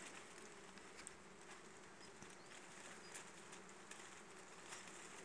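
Faint, steady buzzing of honey bees around a wild hive.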